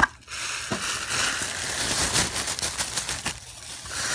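Clear plastic bags crinkling and rustling as a parcel is unpacked and its bagged parts handled, a dense run of sharp crackles with a short lull near the end.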